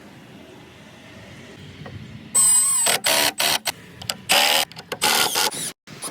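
Power drill running in several short bursts, its motor pitch sliding up and down as it starts and stops, after a couple of seconds of faint hum.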